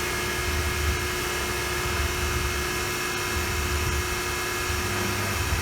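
CNC machining center drilling holes in a cast saw carriage: a steady spindle whine of several constant tones over a low, slightly pulsing machine hum.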